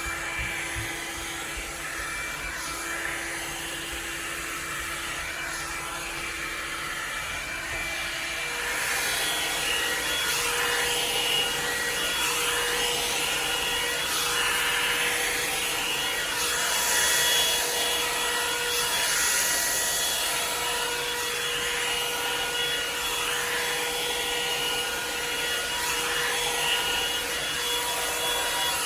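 Revlon One-Step hair dryer brush running steadily: a motor whine over a rush of air as it is drawn through hair, getting louder about eight seconds in.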